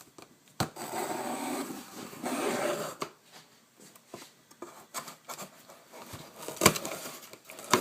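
Handling noise during a one-handed unboxing. A couple of seconds of rough rubbing and scraping come first, then scattered knocks and clicks, the sharpest near the end.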